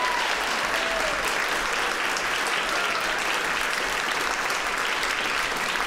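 Audience applauding steadily at the end of a live performance.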